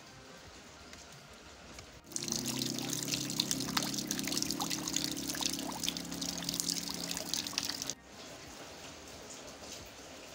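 A stream of water pouring and splashing into a blue plastic drum full of water, starting about two seconds in, running loud and steady with a low hum beneath the splashing, and cutting off sharply about six seconds later. Faint rain is heard before and after it.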